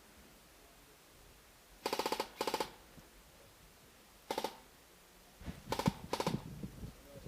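Airsoft guns firing short full-auto bursts of rapid clicking shots: two bursts about two seconds in, a brief one around the middle, and two more near the end, with some dull low thuds alongside the last pair.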